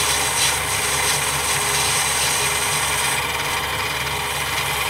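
Mini lathe running with a steady motor hum while the cutting tool takes a turning pass on a brass bushing. The high cutting hiss drops away about three seconds in, and the motor keeps running.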